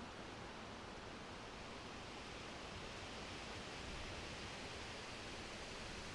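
Summer wind blowing through forest trees, a steady rustling hiss of leaves that swells slightly midway.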